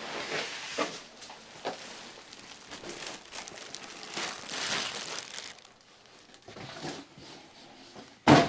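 Packaging of a PC case being handled during unboxing, rustling in irregular bursts, with one sharp knock near the end.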